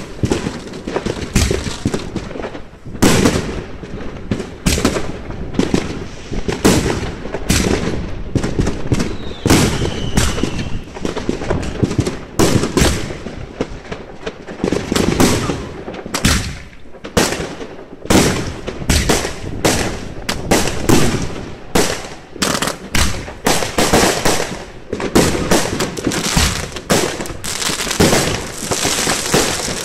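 Aerial fireworks going off in a dense, irregular string of bangs, many in quick succession with no break.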